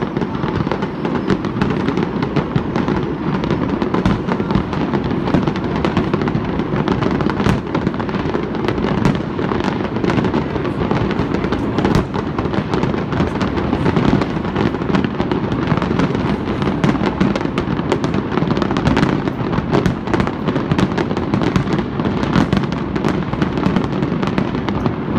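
Aerial fireworks shells bursting in a dense, continuous barrage: rapid overlapping bangs and pops over a steady low rumble, with no pause.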